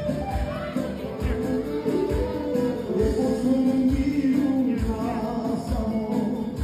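Southern Albanian folk music: singing over instruments, with a deep drum beat about once a second.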